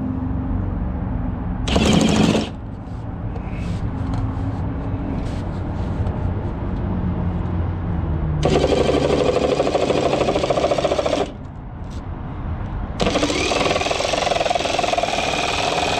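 Reciprocating power saw cutting through the plastic bumper cover of a Toyota Prius, in three runs: a brief burst about two seconds in, a run of about three seconds past the middle, and a longer run starting near the end, each a fast buzzing chatter of the blade.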